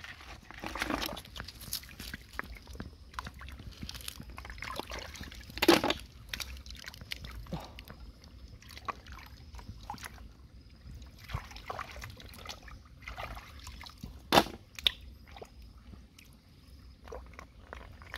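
Hands sloshing and splashing in shallow muddy stream water while feeling along the bottom for snails, with irregular small clicks and two sharper knocks, about six and fourteen seconds in.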